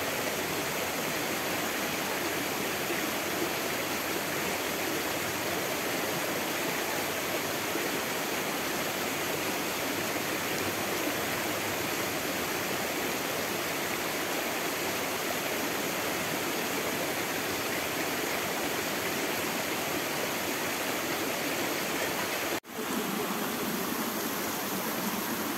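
Water rushing steadily in a stream or small waterfall, a constant even rush; it cuts out for an instant about 23 seconds in and then carries on.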